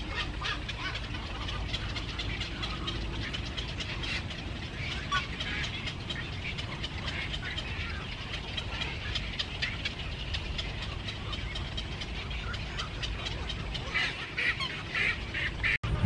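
Many birds calling and chattering in quick short notes over steady low background noise, with a burst of louder calls near the end.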